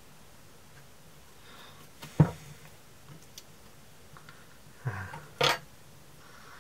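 Faint handling clicks as a tiny nut is worked onto a stud of a small model engine's finned cylinder, with one sharp knock about two seconds in and a short breath out near the end.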